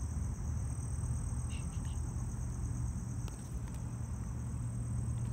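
Crickets chirping in a steady high-pitched chorus over a steady low rumble.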